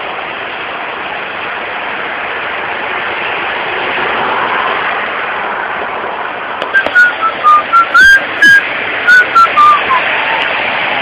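A person whistling a short run of about a dozen loud, clipped notes, the tune stepping down in pitch at the end, over a steady hiss.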